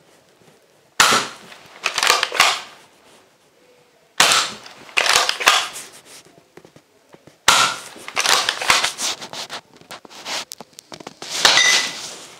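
NERF Commander Elite 2.0 pump-action dart blaster being pumped and fired four times, about three seconds apart. Each shot is a sudden sharp snap followed by a second or two of clicking and clattering.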